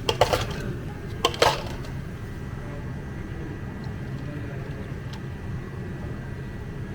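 A steady low hum of cafe equipment, with a few brief clatters of things being handled in the first second and a half.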